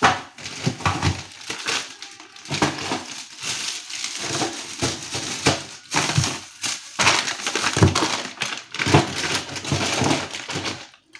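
Plastic bags of frozen food crinkling and knocking together as they are handled and pushed into a freezer drawer, an irregular run of crackles and knocks.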